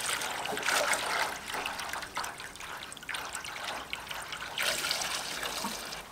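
Water poured from a can splashing into the metal water tray of a wet stone saw, topping it up so the cooling-water pump sits fully under water. The pouring stops just before the end.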